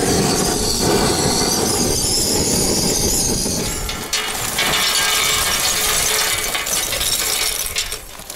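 Handheld gas torch hissing steadily as it is held to a pile of wood kindling. About four seconds in, lumps of charcoal poured from a bag clatter onto the burning wood in a steel grill box.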